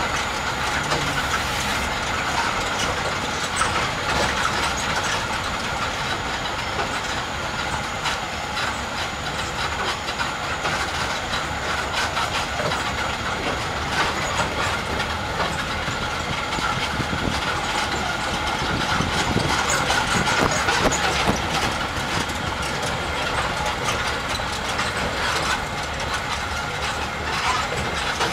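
Resort tram running steadily over a paved stone path: its engine runs and the carriage rattles, with many small clicks and knocks throughout.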